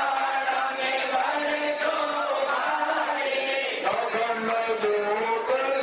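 Hindu devotional chanting of an aarti hymn, with long held notes that bend from one pitch to the next.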